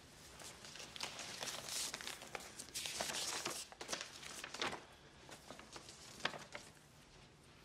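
A paper letter rustling and crinkling as it is handled and unfolded. It is loudest from about one second in until nearly five seconds, with a few sharp crackles, then fades to quiet.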